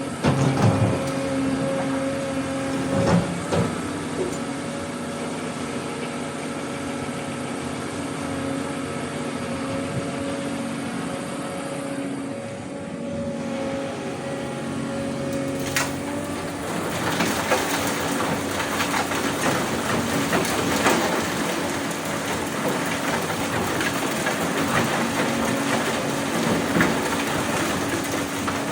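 Excavator running with a steady, even hum; about sixteen seconds in a louder, irregular rattling clatter takes over and continues.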